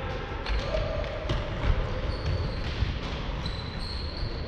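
Footballs being kicked and bouncing on a sports hall floor, each thud echoing around the large hall. A few short high squeaks come about halfway through.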